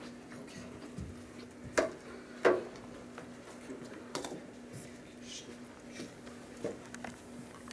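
A few scattered knocks and taps, the loudest two close together a couple of seconds in, over a faint steady hum in a quiet room.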